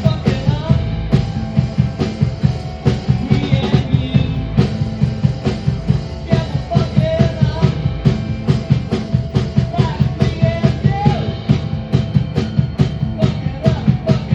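Rock band playing live, with a drum kit keeping a steady, even beat under sustained low notes and some sliding higher lines.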